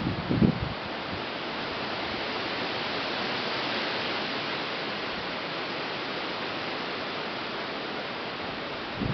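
Wind blowing through the trees' leaves as a steady rushing hiss, swelling a little midway, with a couple of low thumps of wind buffeting the microphone at the start.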